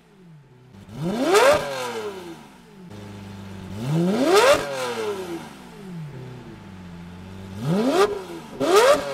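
Lamborghini Murciélago V12 revved in neutral: four sharp blips that climb quickly and fall back to a steady idle, the last two close together near the end.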